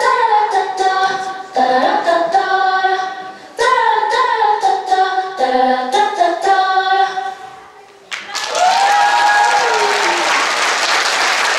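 Recorded song with sung vocals playing for the dance, dying away about seven and a half seconds in; then the audience suddenly breaks into applause, with a cheer on top.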